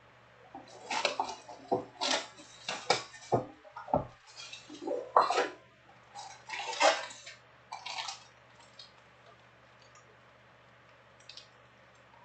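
Plastic trading-card packs and clear shrink-wrap crinkling and rustling in irregular bursts as they are handled, with a few soft thuds as packs or a box are set down. It dies away after about eight seconds.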